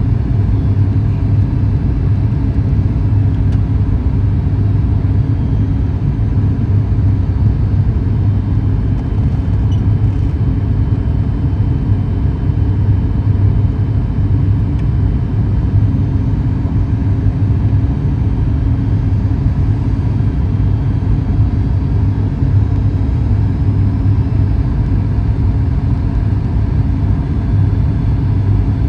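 Steady cabin drone of a Boeing 737 MAX 8 in flight, heard from a window seat by the wing. Its CFM LEAP-1B jet engines and the airflow make a loud, even low hum with no changes.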